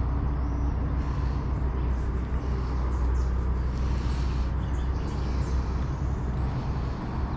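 Steady low rumble with a constant low hum throughout, and a few faint high bird chirps.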